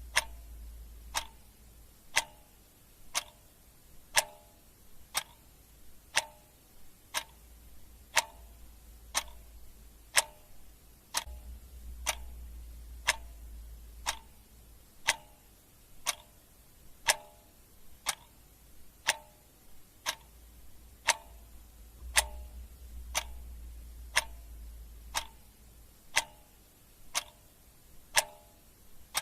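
Clock ticking steadily, about two ticks a second, with an alternating tick-tock.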